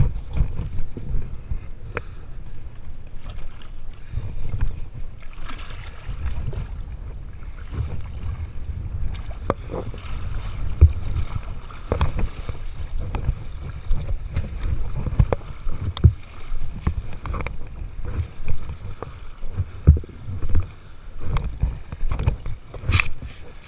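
Water sloshing and lapping around a camera held at the waterline, with an uneven low rumble and many scattered knocks and splashes.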